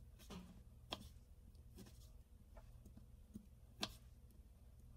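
Near silence with a steady low hum and a few light, scattered clicks and taps, the two sharpest about a second in and just before the end.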